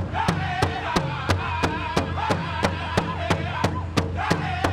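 Pow wow drum group: several singers in high, wavering voices over a large drum struck in unison at about three beats a second.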